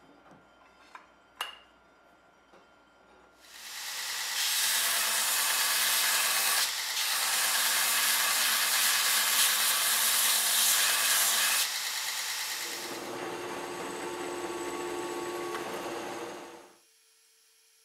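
A few light clicks, then a belt grinder grinding steel, loud and rasping, from about three and a half seconds in. About twelve seconds in it gives way to a quieter drill press boring through a knife bolster, which stops abruptly about a second before the end, leaving a faint hum.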